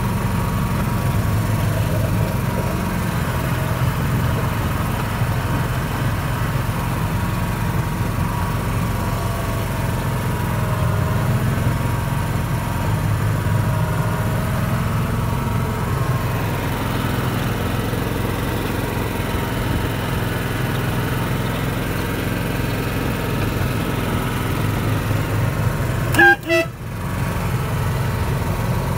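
Engine of a miniature-railway 2-6-2 petrol-hydraulic locomotive running steadily under way, heard from inside its cab. Near the end, the locomotive's horn gives a short double toot.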